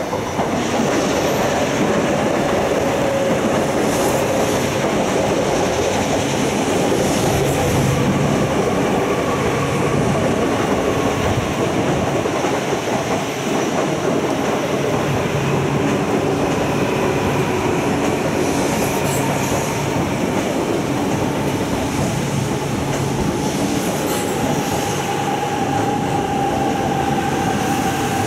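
E4 series Max double-deck Shinkansen train running past on the elevated track. It comes in abruptly at the start, then holds as a steady rush of wheels on rail with whining tones that drift slowly in pitch.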